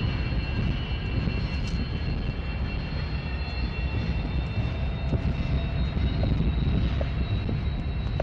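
Norfolk Southern diesel-electric locomotives backing slowly along the track, their engines running with a steady low rumble.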